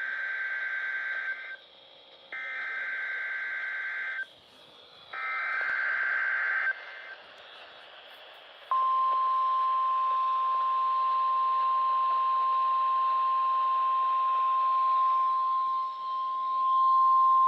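NOAA Weather Radio test signal. It opens with three SAME header data bursts, harsh screeching buzzes about two seconds long with short gaps of faint hiss between them. About nine seconds in, a steady 1050 Hz warning alarm tone starts and holds unbroken.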